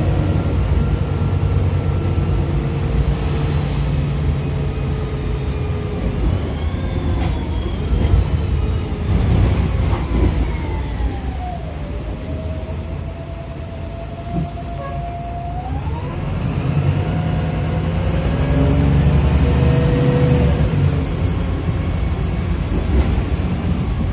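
Inside a VDL SB200 bus on the move: low diesel engine rumble under the whine of its Voith automatic gearbox. The whine falls in pitch as the bus slows, holds steady for a few seconds, then rises again as it picks up speed.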